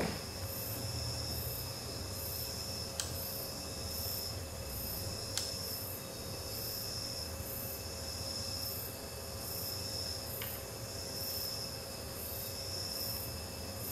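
A steady high chirring like insects, pulsing about twice a second, over a low hum and a faint steady tone, with a few faint clicks.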